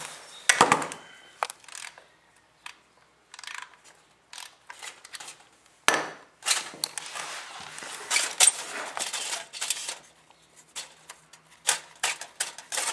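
Ratchet socket wrench clicking and rattling in irregular bursts while loosening the oil drain plug of a Honda CBR600RR, with a denser run of clicks from about six seconds in. The plug is being unscrewed, and the oil has not yet started to drain.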